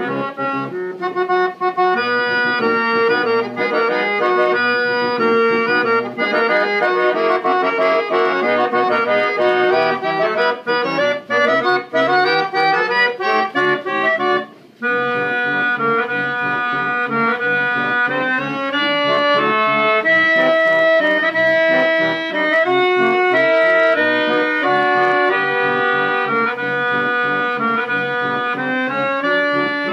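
Aeolian Model 1250 self-playing reed organ playing a march from a 46-note paper music roll: sustained reedy chords with a moving melody, with a brief break in the music about halfway through.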